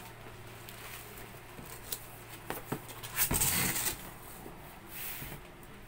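Cardboard shipping box being opened by hand: a few light clicks and taps, then a loud scraping rustle of the cardboard flaps about three seconds in, and a softer rustle near the end.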